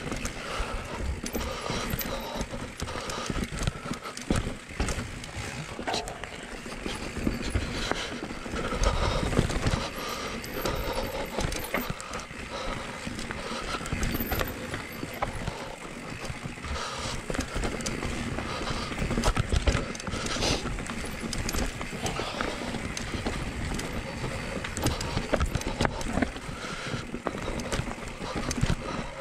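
Cube Stereo 170 enduro mountain bike riding down a rough dirt singletrack: tyres rumbling over dirt, rocks and roots, with frequent knocks and rattles from the bike over the bumps and a steady rush of wind on the microphone.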